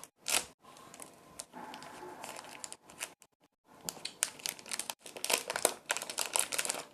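Plastic candy bag crinkling in irregular bursts as gummy candies are handled and taken out, with a short pause about three seconds in.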